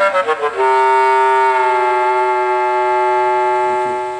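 Comic 'fail' sound effect: a quick run of notes stepping down in pitch on a woodwind-like tone, ending in one long held note that cuts off suddenly near the end.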